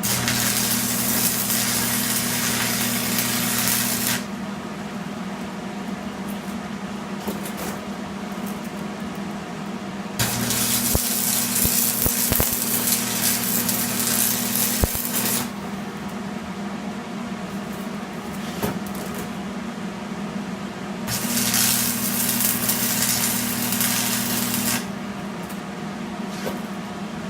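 Electric arc welding on the steel joint of a four-way lug wrench: three welding runs of steady hiss with a hum under them, about four, five and three and a half seconds long. Between the runs a quieter steady hum carries on.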